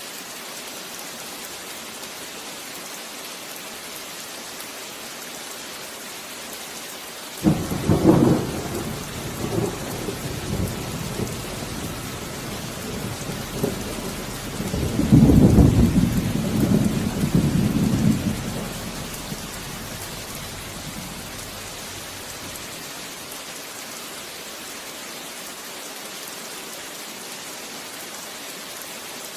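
Steady rain with a thunderclap about a quarter of the way in, followed by a second, louder roll of thunder around halfway that rumbles on for a few seconds and fades, leaving the rain alone.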